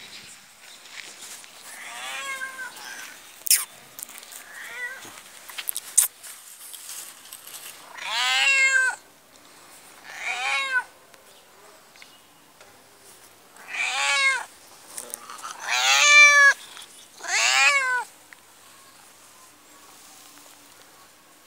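A black domestic cat meowing again and again: two faint meows, then five loud drawn-out meows of about a second each, every one rising and then falling in pitch. Two sharp clicks fall among the early, fainter meows.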